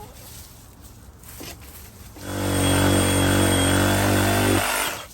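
A power tool runs steadily for about two and a half seconds, starting and stopping abruptly, a deep hum with a thin high whine over it.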